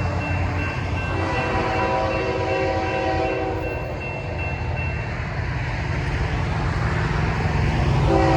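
Diesel locomotive horn sounding a chord as a freight train approaches a grade crossing: one long blast from about a second in to about five seconds, and another starting near the end. Under it the locomotive's engine rumbles, and the crossing's electronic bell rings in quick even pulses until about halfway.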